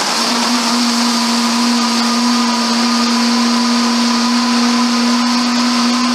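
Waring Xtreme MX-series 3.5-horsepower commercial blender running on high, blending a jar packed with ice, rum and strawberry daiquiri mix into a thick frozen drink. A loud, steady motor whine holds one even pitch, settling in just after the start.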